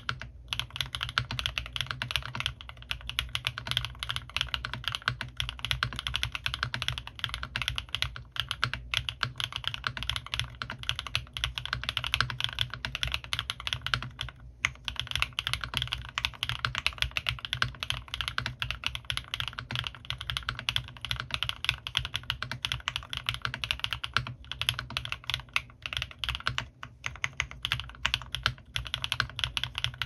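Fast, continuous typing on a custom mechanical keyboard: a CannonKeys Rekt1800 with lubed Gateron RAW switches, foam-dampened case and PBT keycaps. It makes a dense run of rapid keystrokes that breaks off briefly a few times.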